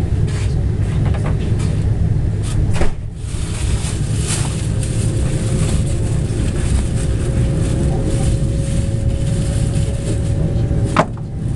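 Passenger train carriage in motion, heard from inside: a steady low rumble of wheels on rails. A sharp knock comes about three seconds in and another near the end, and a thin steady tone sounds through the middle.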